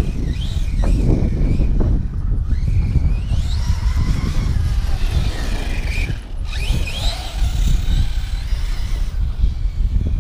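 Battery-powered RC car's electric motor whining, rising and falling in pitch several times as it speeds up and slows across the grass, over a steady low rumble of wind on the microphone.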